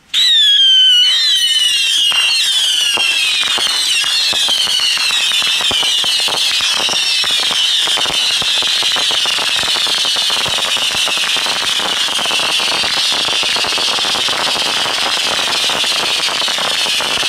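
Mass launch of a thousand Pyro Predator Thunderbolt rockets fired together in bundles: a dense wall of overlapping high whistles, each sinking slightly in pitch, over continuous rapid cracks and pops. It starts suddenly at full loudness and is loudest in the first second.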